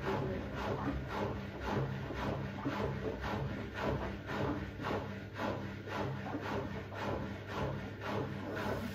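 Front-loading washing machine drum turning during its load-balancing phase before the spin: a steady motor hum with an even swish-and-thump from the two hoodies tumbling, about two to three times a second.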